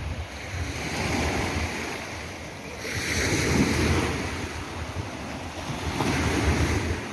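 Sea waves breaking and washing in, swelling and fading in about three surges, with wind rumbling on the microphone.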